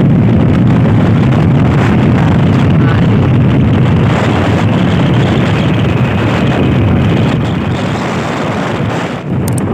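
Steady loud wind rush over the microphone of a moving motorcycle, with the bike's engine running beneath it; it eases slightly near the end.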